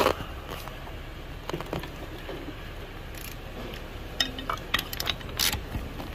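Scattered light clinks and knocks of steel hand tools being handled as a ratchet and socket are picked up from a tool tray, the sharpest about five and a half seconds in.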